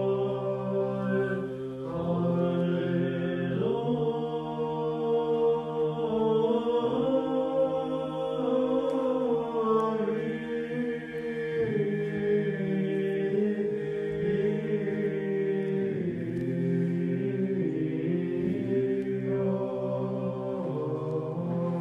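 Unaccompanied Orthodox church chant sung by several voices. Long held notes shift in pitch every few seconds.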